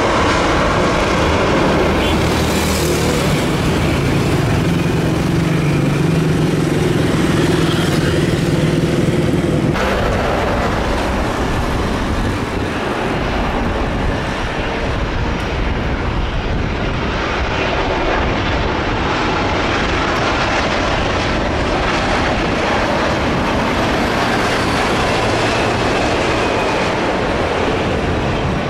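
Jet airliner engines on landing approach, a loud, steady roar. For the first ten seconds a low hum runs under it, and about ten seconds in the sound changes abruptly to an even, broad rumble.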